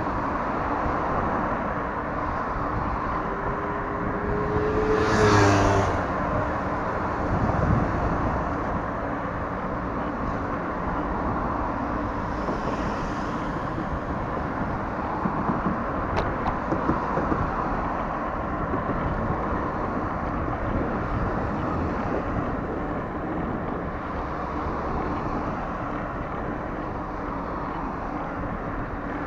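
Steady road traffic noise from cars passing on a busy multi-lane road close by. One vehicle passes noticeably louder about five seconds in, with a short rising tone.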